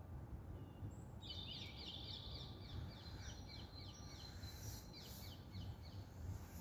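A songbird sings a fast run of short, repeated high notes, starting about a second in and lasting a few seconds, over a low steady rumble.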